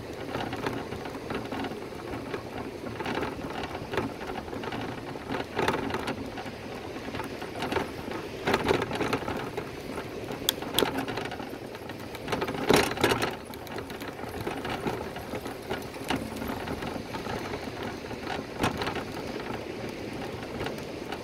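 Steady rattling and rushing road noise of a bicycle on the move, full of quick clicks and knocks, with louder jolts about eight and thirteen seconds in.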